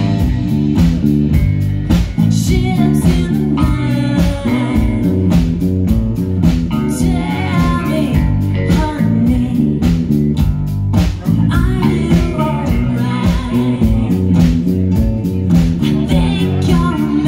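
Live rock band playing: a woman sings over acoustic guitar, electric guitar, electric bass and a drum kit, with a steady beat throughout.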